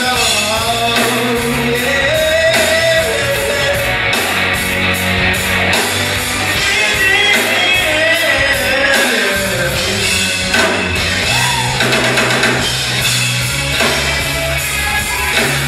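Male singer singing into a microphone over a live rock band, with drum kit, electric guitar and bass.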